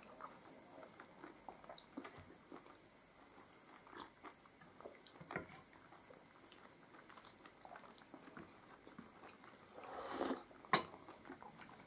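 Quiet eating at a table: faint chewing and small scattered clicks of food and dishes. Near the end comes a short sip of hot tea from a glass mug, then a single sharp click.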